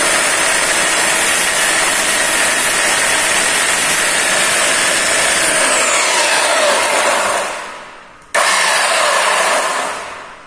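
Ingco PBS12001 1200 W belt sander running free with no load: a steady high whine from the motor and spinning belt. About six seconds in it is switched off and winds down, then it is started again about eight seconds in and winds down once more near the end.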